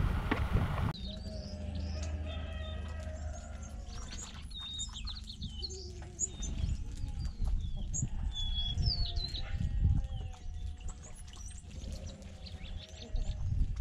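Flock of small songbirds feeding on the ground, chirping and calling with many short, varied whistles, with wings flapping as some fly up into the trees.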